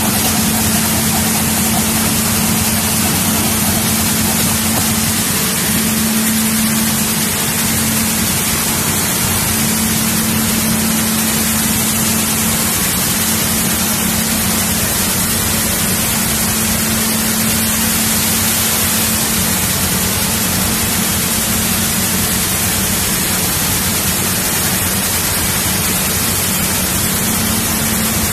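A seed and grain cleaning line for soybeans running steadily: a loud, even rushing noise with a constant low hum underneath, as the machines run and beans stream through.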